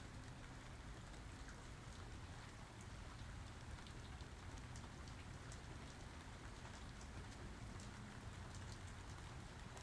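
Steady rain falling, with many small drops ticking over a low, even rumble.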